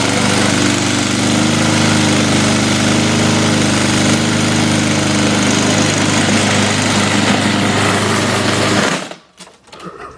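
Honda walk-behind lawnmower's single-cylinder four-stroke engine running steadily, then cutting out suddenly about nine seconds in.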